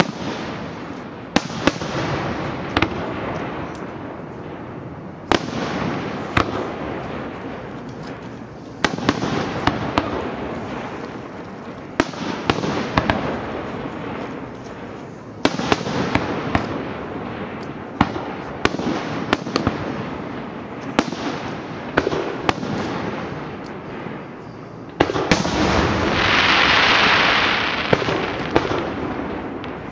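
Fireworks display: sharp shell bangs every second or two, each trailing off in a long rumble. About 25 seconds in comes a louder rushing noise that lasts around three seconds.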